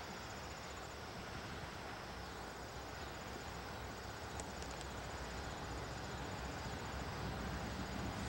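Insects chirping in a steady, high, evenly pulsing trill, over the low rumble of a distant freight train led by GE diesel locomotives, growing slowly louder as it approaches.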